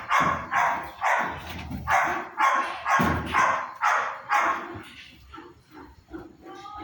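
A dog barking repeatedly, about two barks a second, dropping to fainter, scattered barks after about five seconds.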